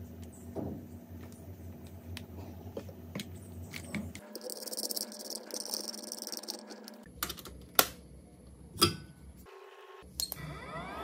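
Light clicks and taps of small repair tools on a phone, with a hiss in the middle and two sharper clicks after it. Near the end, a small motor whirs up, rising in pitch.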